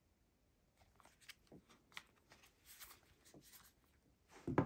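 A phone in a clear plastic case being handled: a scatter of light clicks and rubs, then a louder knock near the end as it is brought down onto a wooden table.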